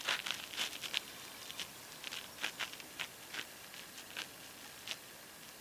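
Faint, irregular clicks and light taps, more than a dozen, thinning out toward the end: handling noise from a camera held up to a spotting scope.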